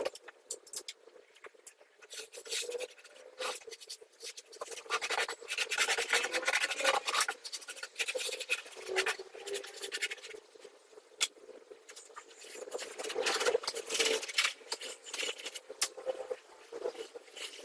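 Hand tool scraping and rubbing against a hard surface in irregular strokes, with scattered sharp clicks and a faint steady hum underneath.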